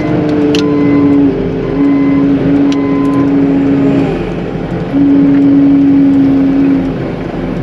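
CAT 906M compact wheel loader's diesel engine working under load while pushing slush, its note and loudness dropping and picking up again several times. Two short reversing-alarm beeps sound about a second in and again near three seconds.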